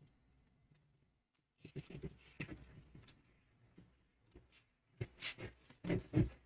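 Scissors cutting through a paper sewing pattern: a run of snips and paper crackle from about two seconds in, then a louder series of snips from about five seconds in.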